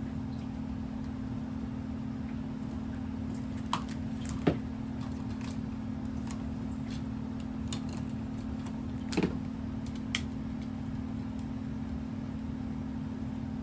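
A few scattered light clicks and taps of hand tools and solid copper wire as a hook is bent in the wire and screwed under a light switch terminal, over a steady low hum.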